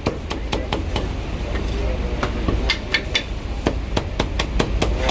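Chinese cleaver chopping roast meat on a wooden block: a run of sharp, irregular chops, coming quicker in the second half.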